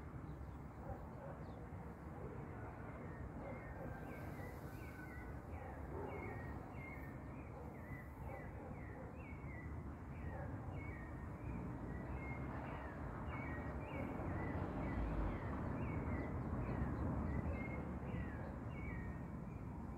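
Repeated short chirping animal calls, a couple a second, over a low steady rumble that swells for a few seconds near the end.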